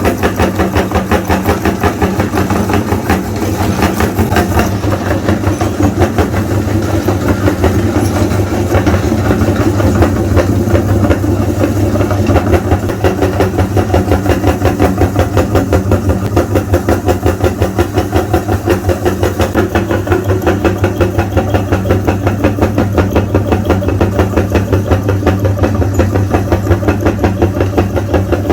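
Electric meat grinder motor running steadily with a constant hum while grinding colored chalk.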